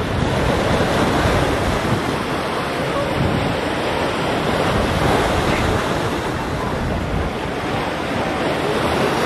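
Sea waves and wind: a steady noise of moving water with wind rumbling on the microphone.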